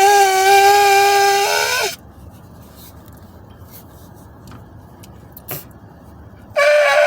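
A shofar blown in two long blasts. The first holds one steady note, wavers and breaks off about two seconds in. The second, higher note starts near the end.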